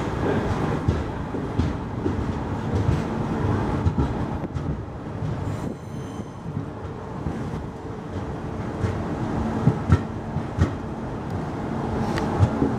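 Passenger train coach in motion, heard from alongside the coach: a steady rumble of wheels on rails with irregular clacks. Two sharp clacks come close together about ten seconds in.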